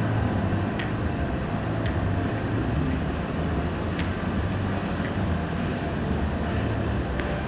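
Steady low background rumble, with faint short clicks about once a second.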